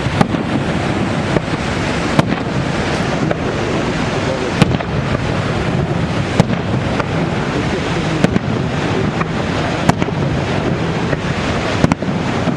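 Fireworks display: sharp bangs of shells bursting every second or two over a steady rushing roar.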